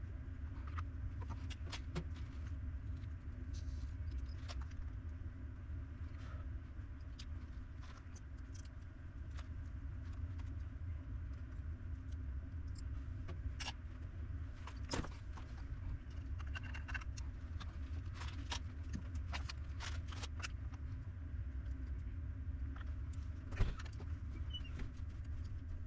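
Steady low hum with scattered light clicks and taps, and one sharper knock near the end.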